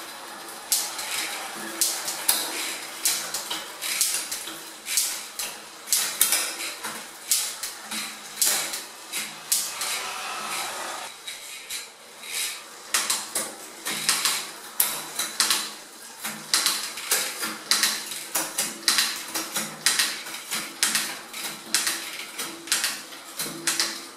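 Shimano SLX 12-speed rear derailleur shifting the chain up and down the cassette of a spinning rear wheel: a run of sharp metallic clicks and clatters, about one to two a second, over the steady running of the chain.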